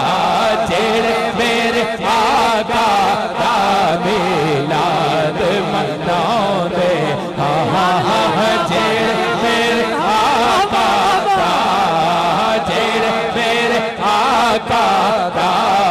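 Male voices chanting a Punjabi naat in a long, wavering melodic line over a steady held tone underneath.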